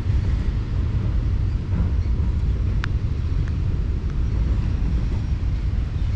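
Low, steady rumble of a long Norfolk Southern freight train rolling past at the end of its run, with one brief faint high squeak about three seconds in.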